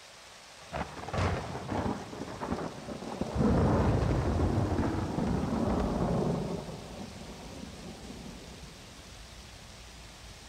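Thunder over a steady rain hiss: a few sharp cracks about a second in, then a long low rumble that peaks around four seconds in and slowly dies away.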